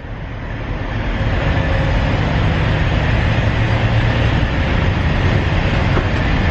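Diesel semi-truck engine running with a steady rushing noise over a low hum, building over the first second and then holding level.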